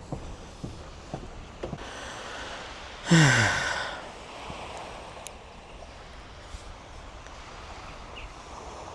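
A man's loud, breathy sigh about three seconds in, falling in pitch as it fades, after a few footsteps on steps. A steady haze of wind and surf follows.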